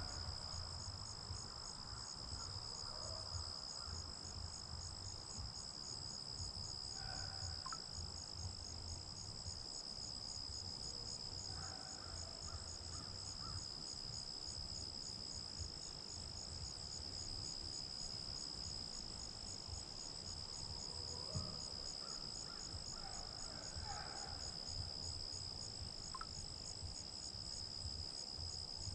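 Steady chorus of crickets or similar insects: a high continuous trill with a fast, even pulsing above it. A few faint, short calls sound in the distance now and then.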